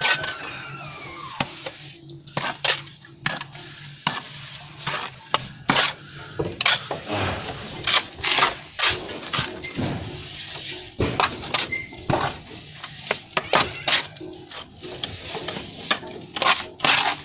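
Steel plastering trowels scraping and tapping as cement mortar is spread and smoothed on a concrete beam and worked off a hawk, in a quick, irregular run of short strokes.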